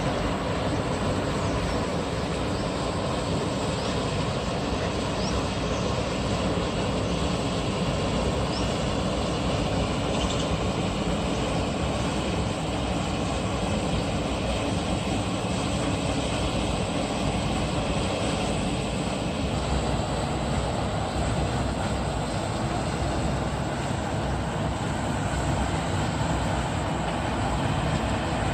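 Steady rushing noise of water spilling over a concrete dam weir into the pool below.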